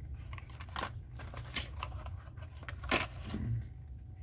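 Carded die-cast toy cars in plastic blister packs being handled: crinkling plastic and cardboard rustling with small clicks, the sharpest about three seconds in.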